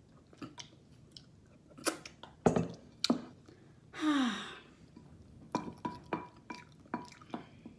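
A person chewing a mouthful of food, with wet mouth smacks. About four seconds in comes a short voiced sound that falls in pitch, then a quick run of small clicks and smacks.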